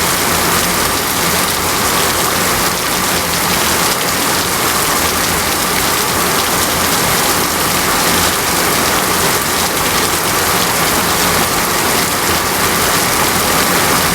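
Heavy rain falling steadily on surfaces, a dense, even hiss of drops.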